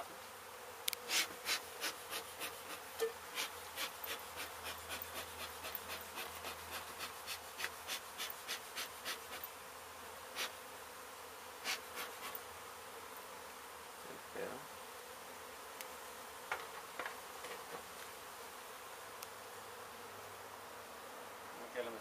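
Honey bees buzzing steadily around an exposed hive. For the first half there is a run of sharp ticks, about three a second, which then thins out to a few scattered ones.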